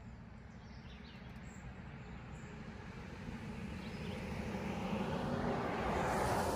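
A road vehicle driving past: its noise builds steadily and peaks near the end.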